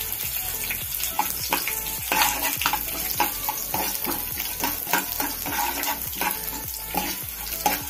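Sesame seeds sizzling in hot mustard oil with dal, chillies and curry leaves in a metal frying pan, toasting in the oil's heat after the flame is off. A metal ladle stirs and scrapes against the pan with repeated short clicks over a steady sizzle.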